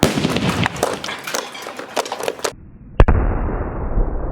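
Crackling and fizzing for about two and a half seconds, then a single loud bang about three seconds in: a firework exploding inside a vacuum cleaner.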